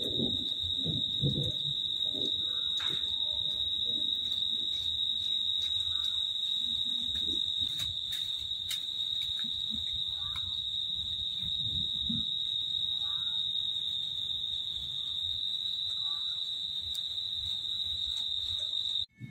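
A night insect's steady, high-pitched trill running without a break, then cutting off abruptly near the end. Low thunder rumble fades out in the first second or two, and faint short falling chirps come every couple of seconds.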